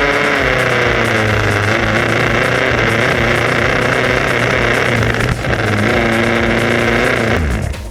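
Remote-control toy car running steadily with an engine-like sound whose pitch slowly wavers up and down; it dips briefly about five seconds in and fades out near the end.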